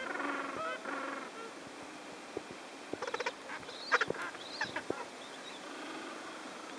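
Gentoo penguins calling: a fast string of short, repeated nasal notes that fades out about a second and a half in, then a few sharper, higher calls and clicks between about three and five seconds in.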